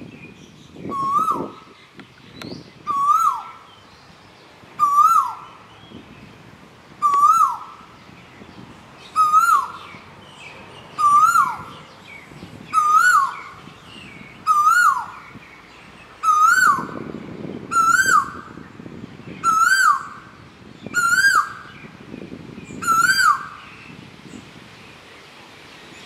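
Male Asian koel calling its 'ko-el' whistle over and over, about thirteen loud calls a second and a half to two seconds apart. Each call rises and then drops sharply, and the series creeps higher and quicker toward the end.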